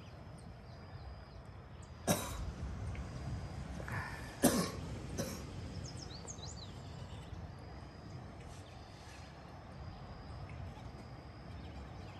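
A person coughing a few times, sharply, about two seconds in and again around four and a half and five seconds, over a steady low outdoor background noise.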